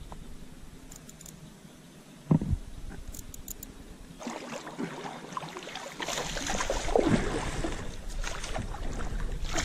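A single sharp knock about two seconds in, then water splashing and sloshing that builds toward the end as a hooked smallmouth bass thrashes at the surface beside a kayak.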